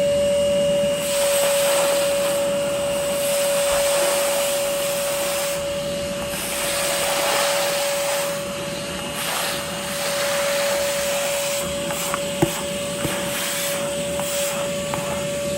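20-volt cordless wet/dry vacuum running steadily with a constant whine and a rushing hiss as it sucks up a wet spill. A single sharp knock comes about twelve seconds in.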